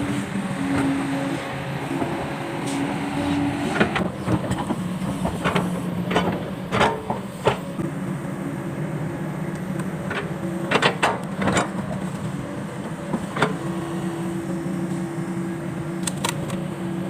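Excavator engine running steadily, its held tones shifting as the hydraulics are worked, with sharp metallic clanks every few seconds, several in quick succession in places.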